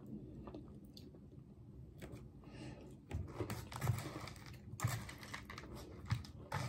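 Quiet chewing of a soft chocolate dessert, then from about three seconds in a plastic spoon scraping and knocking in a dessert cup as more is dug out, a run of sharp clicks and dull taps.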